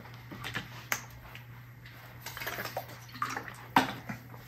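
Scattered small clicks and knocks of a person getting up from a chair and handling things on a desk, with a sharp knock near the end, over a faint low steady hum.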